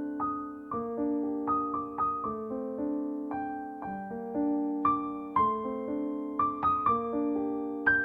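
Gentle piano music: a slow melody of single struck notes over sustained chords, each note ringing and fading.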